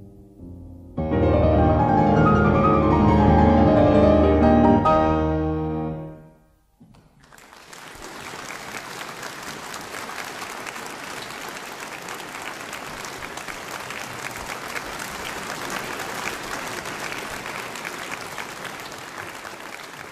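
Piano playing loud closing chords that die away about six seconds in, followed by an audience applauding steadily for the rest of the time.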